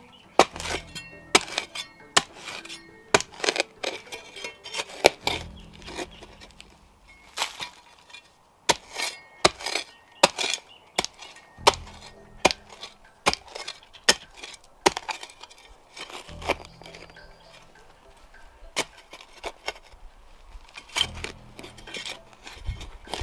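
Cold Steel Spetsnaz shovel chopping and digging into rocky soil: a series of sharp, irregular strikes of the steel blade against earth and stones, about one to two a second. Background music plays underneath.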